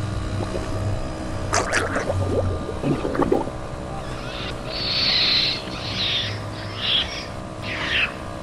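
A proboscis monkey giving shrill cries as it is hauled out of the water onto a small boat, with water splashing, over the steady hum of the boat's running engine.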